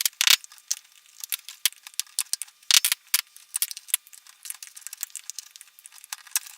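Awl prying staples out of the wooden sides of a bee smoker's bellows: a run of irregular sharp metal clicks and scrapes, some louder snaps as staples pop loose.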